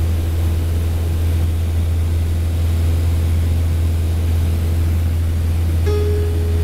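Cessna Cardinal's piston engine and propeller heard from inside the cabin in flight: a loud, steady, low drone with wind and airframe noise.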